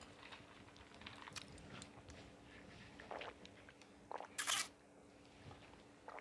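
Quiet mouth sounds of a person finishing a meal, chewing and sipping a drink from a plastic cup, with one louder short hiss about four and a half seconds in.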